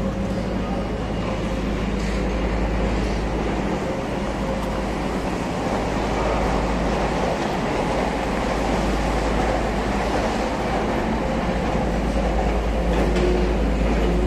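Train running past on the station tracks: a steady, even rumble with a faint hum and no distinct wheel clicks.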